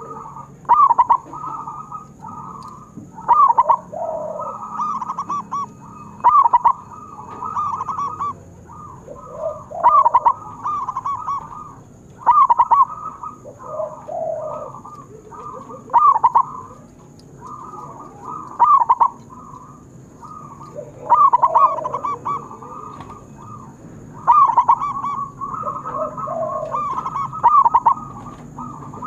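Zebra dove (perkutut) cooing its song: a loud, rapid rolling phrase repeated about every three seconds, with softer, lower cooing notes in between.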